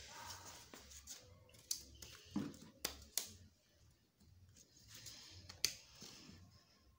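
Faint plastic clicks and snaps, a handful spread out, with soft rustling, as the white plastic backlight base of an LED TV is worked off its retaining clips by hand.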